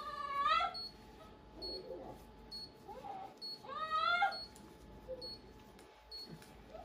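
A dog whining in distress as a splint is bandaged onto her leg: two loud rising cries, one at the start and one about four seconds in, with fainter whimpers between.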